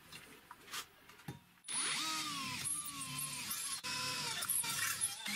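Power drill boring into a square steel tube frame with a twist bit, starting suddenly about two seconds in and running with a wavering squeal as the bit cuts the metal. Before it, a few light clicks.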